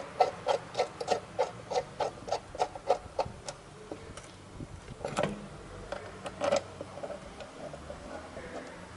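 Ratchet wrench clicking in an even rhythm, about three clicks a second, as bolts are run in on a rear shock absorber mount, then a few scattered metal clicks and two louder knocks about halfway through.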